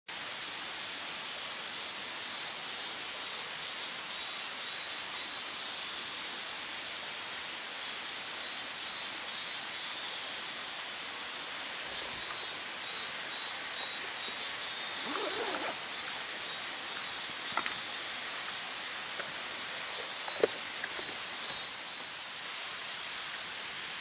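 Steady hiss of Midorigataki, a thin waterfall falling down a mossy cliff face. Runs of rapid high chirping come and go over it, and there are a few sharp knocks in the last third, the loudest about twenty seconds in.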